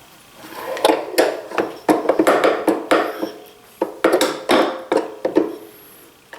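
Metal parts and tools clinking, rattling and scraping as they are handled, in a busy run of sharp clicks over about five seconds.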